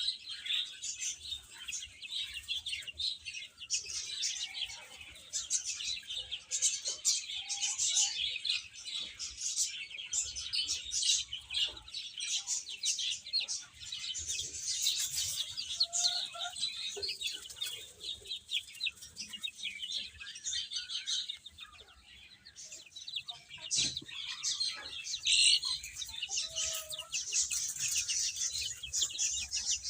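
A group of baby chicks peeping continuously, many short high-pitched chirps overlapping, with a few lower calls mixed in and a brief lull about two-thirds of the way through.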